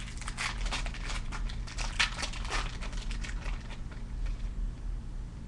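Foil wrapper of a 2008-09 Upper Deck Ice hockey card pack crinkling and tearing as it is ripped open, a dense run of crackles that eases off after about three and a half seconds.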